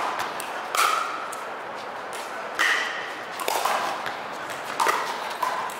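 Pickleball paddles striking the hollow plastic ball during a rally: about five sharp pops, roughly a second apart.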